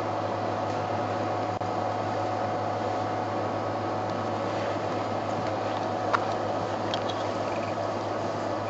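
Steady low hum and hiss, with one short sharp click about six seconds in and a few faint high chirps just after.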